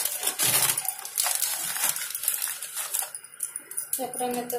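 Hot oil sizzling and crackling in a frying pan, seeds and spices spattering with many sharp pops. A short pitched call starts near the end.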